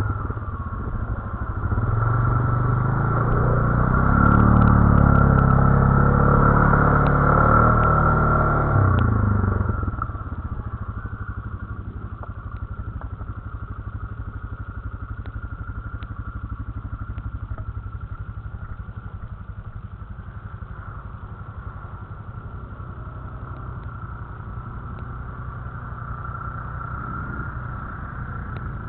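Quad bike (ATV) engine close by, running hard and loud for about the first nine seconds, then dropping back to a steady idle with a fast, even pulse.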